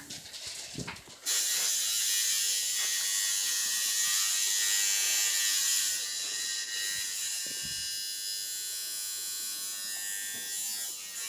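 Electric tattoo machine switched on about a second in and buzzing steadily, a little quieter after about six seconds.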